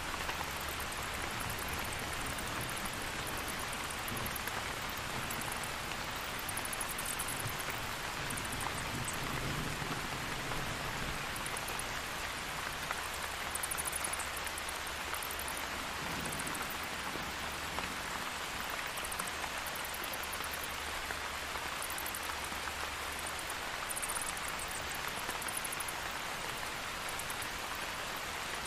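Steady rain falling, with faint low rumbles of thunder now and then.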